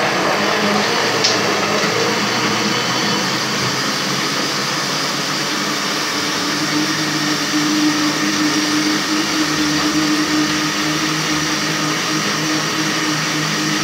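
Countertop electric blender running at full speed, blending fruit with orange juice: a loud, steady whir. Its motor hum grows clearer about halfway through.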